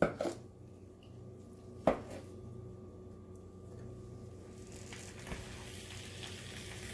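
A metal spoon working ground beef in a frying pan, with one sharp clink against the pan about two seconds in and a few fainter taps. Under it a steady low hum and a faint hiss that grows toward the end.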